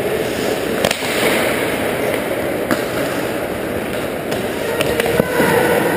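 Ice hockey play on the rink: skates scraping on the ice as a steady noise, broken by sharp cracks of sticks and puck about five times.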